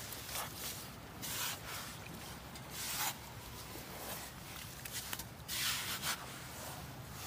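Steel spade cutting into and scraping through wet beach sand, a gritty scrape with each of several strokes about a second or two apart.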